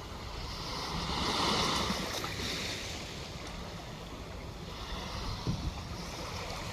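Sea surf washing on the shore, swelling up about a second in as a wave comes in and then easing off, with wind buffeting the phone's microphone.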